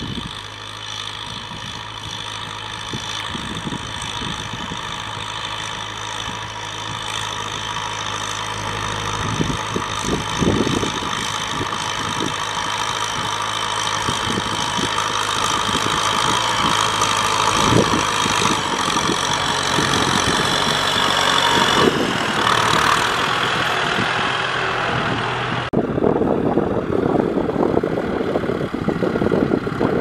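Kubota M6040SU tractor's diesel engine running steadily under load as the tractor works the soil, growing louder over the first two thirds, with occasional knocks. The sound changes abruptly twice near the end.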